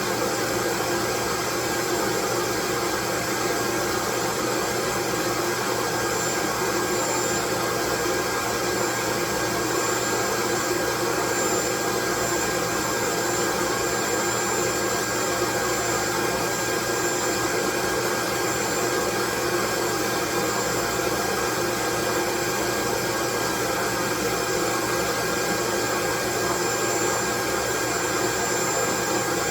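Steady white noise: a constant, even hiss that never changes in level, with a few faint steady tones running through it.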